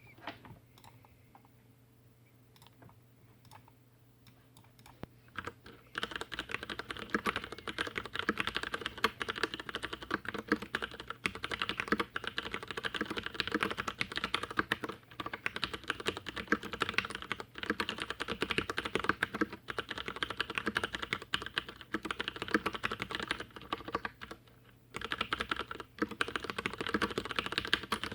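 Fast, continuous typing on a stock Leopold FC750R tenkeyless mechanical keyboard with Cherry MX Brown switches. It begins after a few seconds of near-quiet with only scattered key clicks and pauses briefly near the end before resuming.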